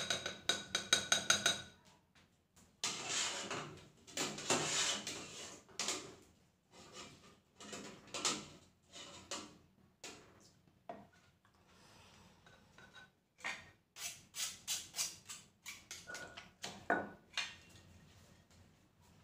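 Shredded bamboo shoots tipped from a metal pot into an earthenware mortar, with clinking and scraping, then a wooden pestle knocking and pounding in the mortar, in a quick run of strokes about three-quarters of the way through.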